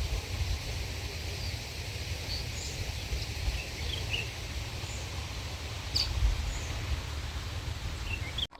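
Wind rumbling on the microphone with birds chirping here and there in short calls; the sound cuts off abruptly near the end.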